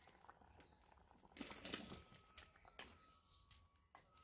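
Mostly quiet, with a short rustling clatter about a second and a half in and then a few sharp clicks, as a ladle is worked in a pot of curry.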